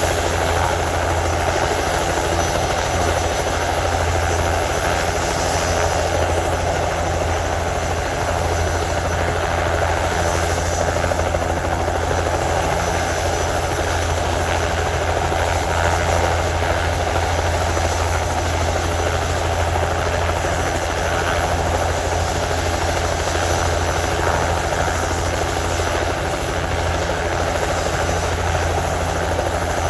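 Crop-spraying helicopter running steadily, its rotor and engine making an even, unchanging drone.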